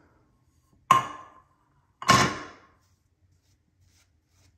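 Two sharp knocks about a second apart, each with a brief ringing tail.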